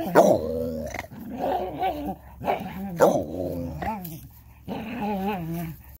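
Dog vocalizing in a string of about five wavering, wobbling moans and grumbles, some starting abruptly, with short pauses between them.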